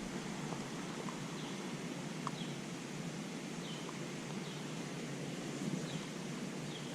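Steady outdoor rushing background with a bird repeating a short, high, falling chirp about once a second.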